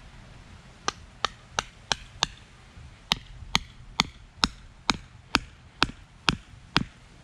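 Small steel sledgehammer striking the top of a wooden stake, driving it into the lawn: about fourteen sharp blows, a quick run of five starting about a second in, then after a short pause a steady run of nine at roughly two a second.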